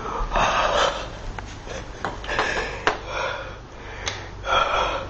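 Close, breathy noises in short puffs, with a few sharp clicks between them.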